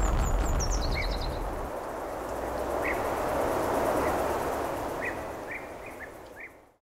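Outdoor ambience: a steady hiss of background noise with small birds chirping, a falling call and a short trill near the start, then scattered short chirps. It fades down and cuts off to silence near the end.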